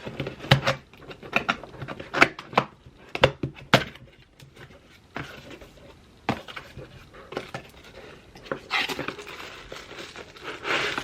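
A cardboard graphics-card box being opened by hand: a quick run of taps and knocks as the flaps and contents are handled, then a rustle of bubble wrap near the end.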